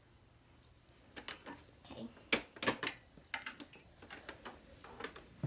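Hard plastic parts of a Barbie camper playset clicking and clattering as they are handled and the roof panel is lifted, in irregular sharp knocks that are loudest about two and a half seconds in.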